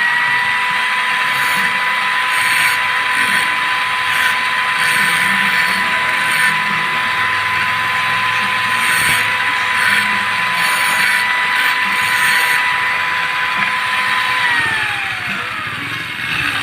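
Angle grinder mounted upside down as a cut-off saw, its motor running at full speed with a steady high whine and rasping cutting noise coming and going. About two seconds before the end the whine falls in pitch as the grinder winds down.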